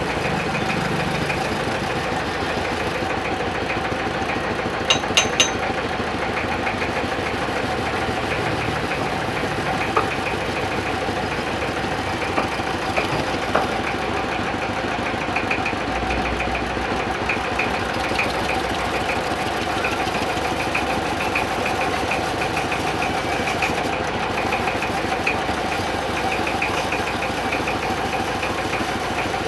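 Lathe running steadily as a wooden kendang jaipong drum body is turned on it. Three sharp clicks come quickly one after another about five seconds in.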